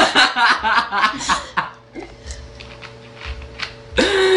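People chuckling and talking for the first second and a half, then a quieter pause. About four seconds in, a loud drawn-out vocal sound starts, falling in pitch.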